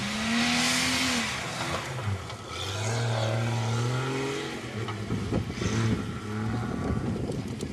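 Off-road 4x4's engine revving up and down as it drives over rough ground, its pitch rising and falling unevenly, with a hiss in the first second.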